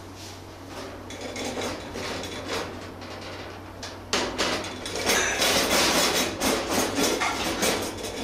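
Irregular knocking and clattering of hard objects, sparse at first, then dense and louder from about halfway through, over a steady low hum.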